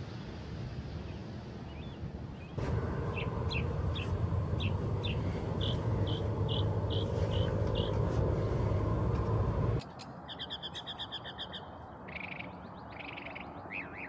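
Northern mockingbird singing: a string of short separate notes, a few to a second, over a loud low rumble of wind noise. About ten seconds in, the rumble drops away and the song turns to faster trilled runs of notes.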